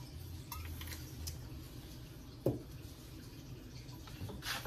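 Cooking oil poured from a bottle onto raw tilapia fillets in a glass baking dish, a quiet wet trickle, with a few faint clicks and a single knock about halfway through as the bottle is handled.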